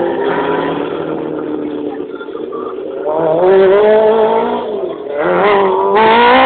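Race cars on a hill-climb course, engines revving hard and rising in pitch through the gears, with gear changes about five and six seconds in; loudest near the end as the cars come close.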